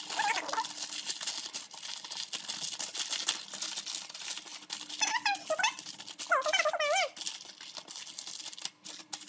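Aluminium foil crinkling and rustling as it is folded and crimped by hand into a tray. Short warbling, whistle-like calls come through twice in the middle.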